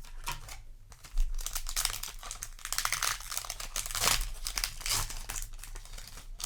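Yu-Gi-Oh! booster pack wrapper crinkling and tearing as it is handled and opened, a dense run of crackles starting about a second in.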